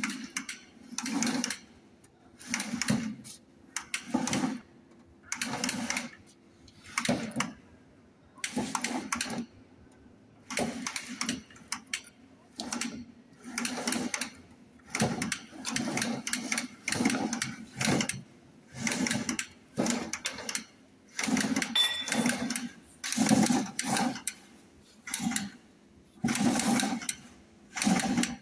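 Seed planter's chain-and-sprocket drive and seed metering mechanism turning, clattering in repeated bursts about once every second or so.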